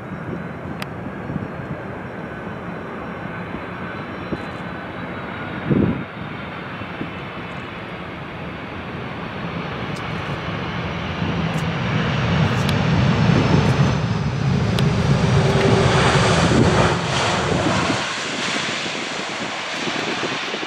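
Boeing 747-400 landing: its four turbofan engines run steadily on the approach, with a brief thump about six seconds in. After touchdown the engines spool up into reverse thrust, a loud, deep rumbling rush from about twelve to eighteen seconds that then drops back as the jet slows on the runway.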